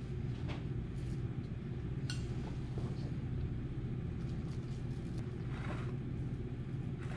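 A steady low mechanical hum, like a motor or fan. Over it, a faint click and soft scrapes as mashed potato is dropped and spread over vegetable filling in glass bowls.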